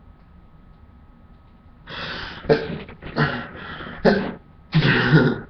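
A man sneezing, deliberately induced: a rapid string of about five loud, explosive, partly voiced bursts beginning about two seconds in, the last the longest.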